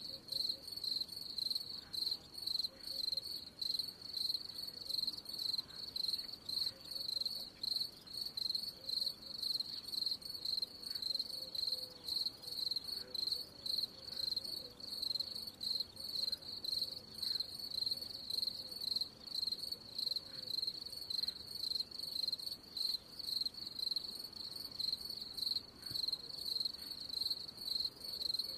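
Cricket chirping: a high chirp repeating in a steady, even rhythm.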